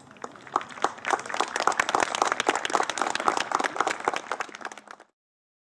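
Many people applauding the lined-up teams at the end of a football match: a dense, irregular patter of hand claps that builds over the first second and cuts off suddenly about five seconds in.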